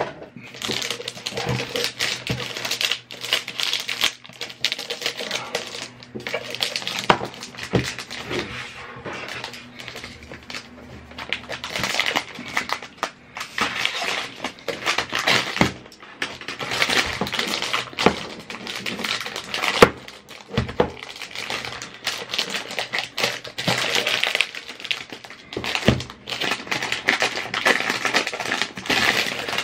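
Plastic shrink-wrap film on a product box crinkling and crackling as it is handled and picked open by hand, with frequent sharp clicks and taps throughout.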